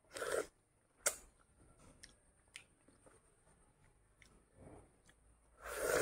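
A ripe mango being eaten by hand close to the microphone: chewing and biting into the soft fruit, with a loud burst at the start and another near the end, and a sharp click about a second in.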